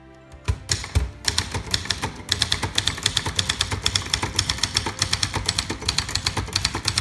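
Manual portable typewriter, a 1963 Brother Valiant, being typed on quickly: two knocks about half a second and a second in, then a fast, even run of key and typebar strikes.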